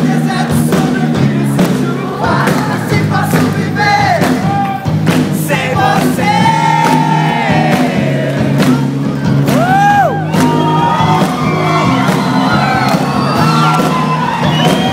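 Rock band playing live, with singing over guitars and drums, and crowd noise under the music.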